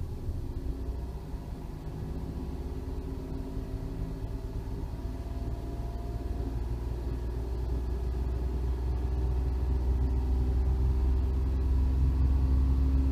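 Toyota Aygo engine revved above idle and held there, running steadily and growing gradually louder.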